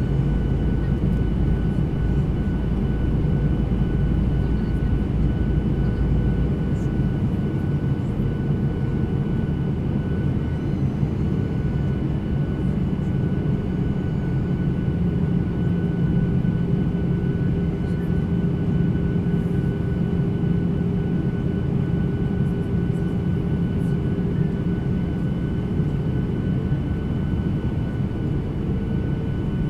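Steady airliner cabin noise in flight: a deep engine drone and rushing air, with a thin steady whine on top. The deepest rumble drops away about six seconds in.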